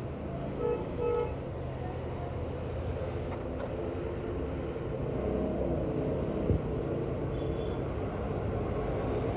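Steady road-traffic rumble with two short vehicle horn toots about a second in, and a sharp click later on.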